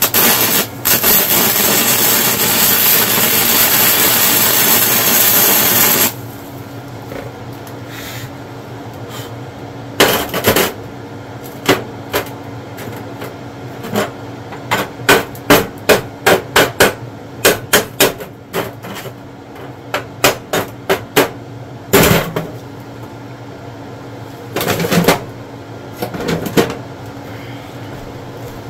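Wire-feed welder arc running steadily for about six seconds as the snapped steel torsion bar is welded, then a long series of sharp hammer strikes on the steel bar, coming in quick runs from about ten seconds in to near the end.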